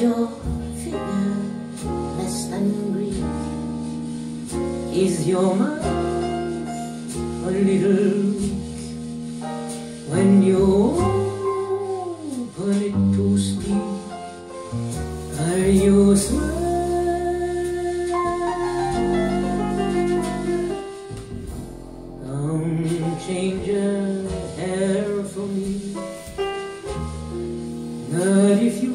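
A recorded song, a lead singer over instruments with a steady bass beat, played back through a home hi-fi stereo system and picked up by a cell phone in the listening room.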